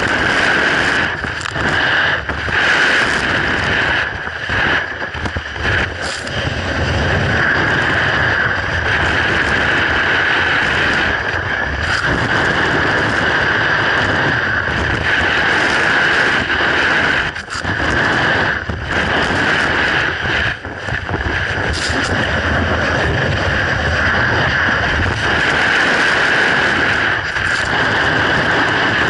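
Snowboard sliding over icy snow: a steady loud scraping hiss that dips briefly every few seconds, with wind buffeting the microphone.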